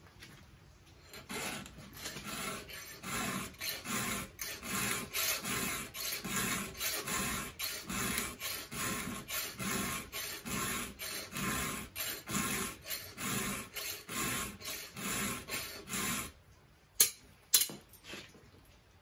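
Round file drawn by hand through the cutters of a top-handle chainsaw's chain, metal on metal, in a steady run of filing strokes about two a second. The strokes stop, followed by two sharp knocks near the end.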